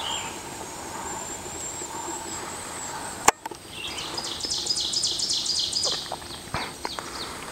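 A small songbird's rapid trill: a quick run of short, high notes lasting about two seconds, starting about halfway through. A single sharp click comes just before it.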